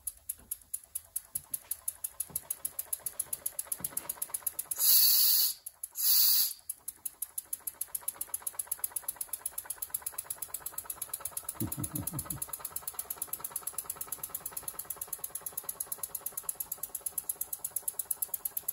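Fleischmann 122/3 toy steam engine running on compressed air, its cylinder exhaust beating at a quick, even rate. About five seconds in, its whistle blows twice in short, loud, hissing blasts.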